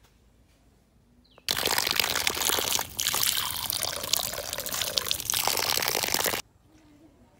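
Water pouring in a steady, splashing stream for about five seconds. It starts and stops abruptly and breaks off briefly about a second and a half in.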